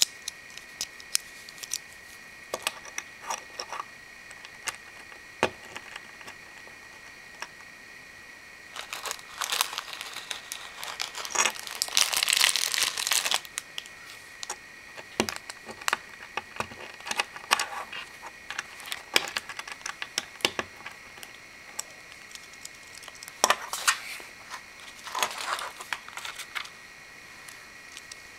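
Hands assembling Lego Bionicle plastic parts: scattered sharp clicks and taps of pieces being fitted together and set down on a wooden table, with two spells of crinkling from a clear plastic parts bag, the longer one about ten seconds in and a shorter one later.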